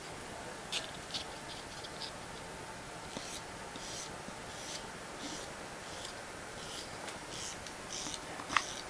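Small, irregular snips and scratches of a newborn's fingernails being trimmed with a tiny manicure tool, over a steady room hiss. A sharper click near the end is the loudest sound.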